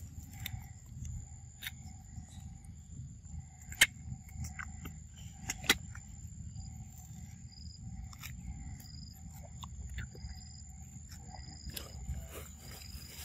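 Macaques biting and gnawing at a hard green mango, with two sharp crunches about four and six seconds in and a few fainter ticks. Behind them run a steady high drone and repeated short calls.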